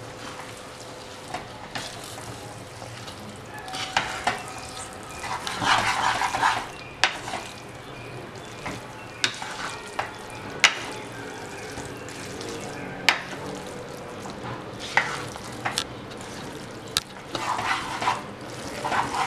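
Wooden spatula stirring and tossing spaghetti through tomato sauce in a nonstick pan, with a low sizzle from the hot pan underneath. Sharp knocks of the spatula against the pan come every second or two, with two louder spells of stirring, one about four seconds in and one near the end.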